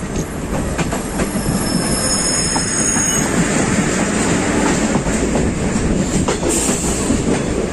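Passenger train running at speed on the rails: a steady, loud rumble of wheels on track, with a thin high wheel squeal during the first three seconds.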